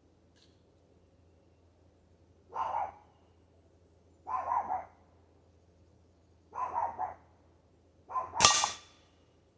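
A dog barking in short double barks, about one every two seconds. Near the end a sharp, loud crack, the shot of an air rifle, lands over one of the barks.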